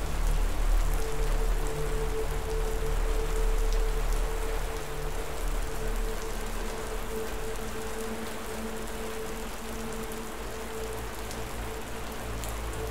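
Steady rain falling, with a low sustained drone underneath, gradually getting a little quieter.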